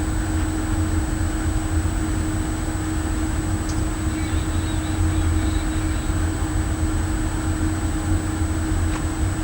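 Steady mechanical drone: a low rumble with a constant hum, unchanging throughout and with no distinct events.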